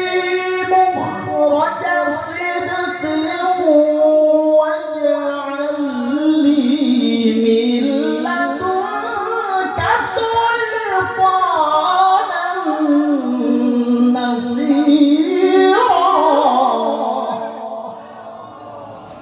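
Qur'an recitation (tilawah) by a single voice, sung in long, drawn-out melodic phrases with wavering, ornamented pitch. It fades away near the end.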